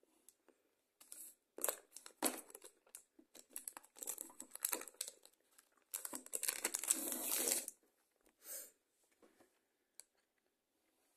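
Chocolate-bar wrapper crinkling in short bursts as it is handled, then a denser stretch of crinkling and tearing about six seconds in that lasts over a second.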